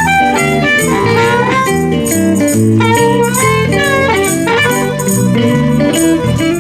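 Electric blues band playing an instrumental break: guitars, bass and drums with a steady beat, under a lead line full of bent notes.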